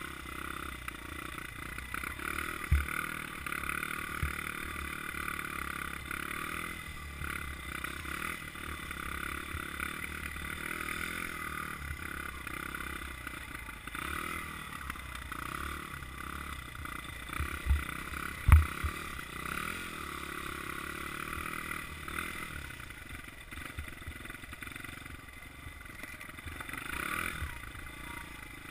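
Honda CRF100F dirt bike's small single-cylinder four-stroke engine running steadily as the bike is ridden, with a few sharp knocks, about three seconds in and twice around eighteen seconds in.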